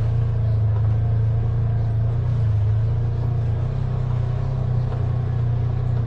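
Side-by-side (UTV) engine running steadily at low speed, a constant low drone heard from on board as it crawls over a rough, rocky trail.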